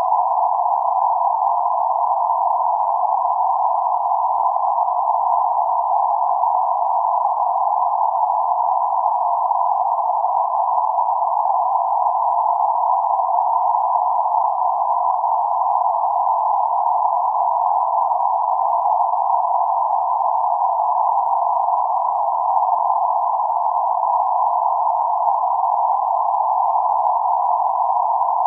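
Steady narrow-band noise centred around 848 Hz: an even hiss confined to roughly 600 Hz to 1.3 kHz, with nothing above or below it, holding a constant level throughout.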